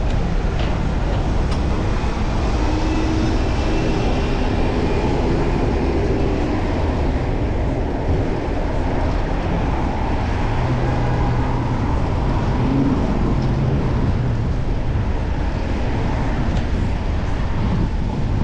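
Wind noise on a chest-mounted action camera's microphone during a bicycle ride in road traffic, with the hum of passing motor vehicles.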